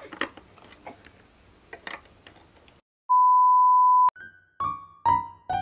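Plastic LEGO Duplo bricks clicking and knocking as they are pressed together by hand. After about three seconds the sound cuts out, and a steady high electronic beep lasts about a second. Then a quick run of falling keyboard notes sounds as music begins.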